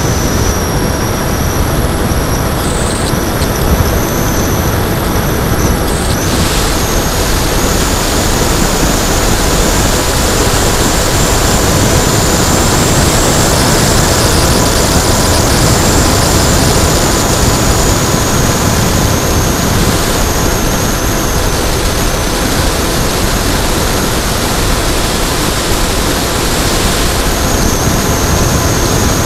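Onboard sound of an electric RC plane in flight: loud, steady wind rush over the airframe and camera microphone, with the high whine of its Turnigy D3536 brushless motor and 8x6 propeller. The whine shifts up and down in pitch a few times with throttle, stepping up about six seconds in.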